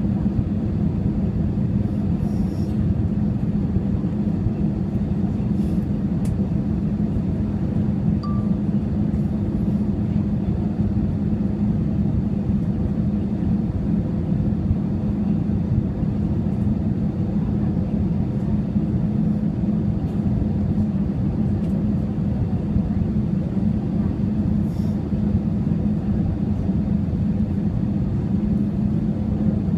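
Jet airliner cabin noise during the descent to landing: the steady rumble of the wing-mounted turbofan engines and the airflow over the fuselage, with a strong low hum.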